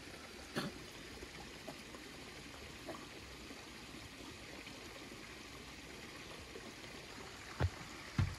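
Faint steady hiss of outdoor ambience, with a few soft low thumps, one about half a second in and two near the end.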